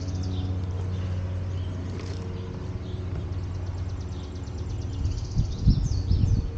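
A steady low motor hum with birds chirping over it, and a fast run of high ticks in the middle. Dull low thumps come in near the end.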